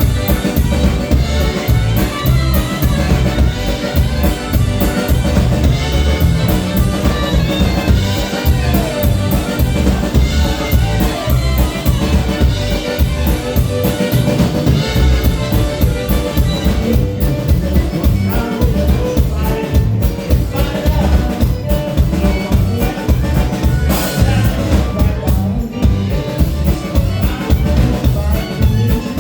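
Live polka band playing a polka, with a drum kit keeping a steady, quick beat under the melody instruments.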